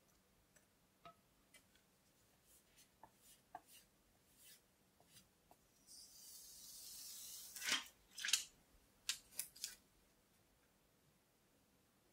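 Small clicks and taps of keyboard parts being handled, then a scraping rustle about six seconds in, followed by a handful of sharp clicks close together.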